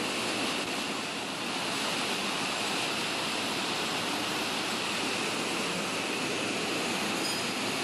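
Steady rushing, churning water noise.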